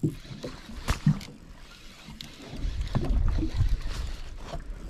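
Wind rumbling on the microphone, strongest from about three seconds in, with a sharp click about a second in and lighter knocks from handling the rod and baitcasting reel.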